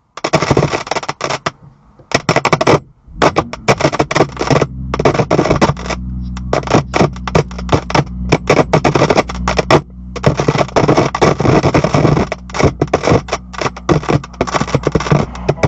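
A 2018 BMW M2's audio speakers blasting crazy loud, irregular crackling and screeching in rapid bursts, with a few short gaps, over a steady low hum. The owner puts it down to a faulty amplifier.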